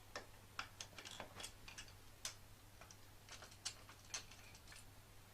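Faint, irregular small clicks and ticks of a screwdriver turning out the screws that hold a light switch faceplate to its back box.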